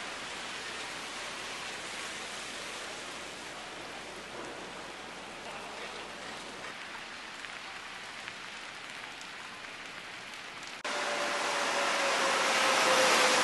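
Heavy rain falling onto standing water, a steady hiss of drops. About eleven seconds in it cuts to a Mexico City Metro train pulling into a station, much louder, with a whine that slowly falls in pitch.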